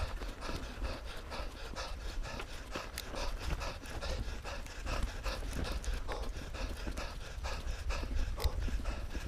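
Mountain bike rolling along a rooty forest dirt trail: a steady low rumble from the tyres and ground, with irregular sharp clicks and rattles from the bike jolting over roots and bumps.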